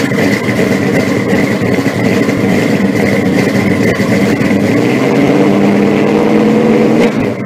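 A car engine running loudly and steadily.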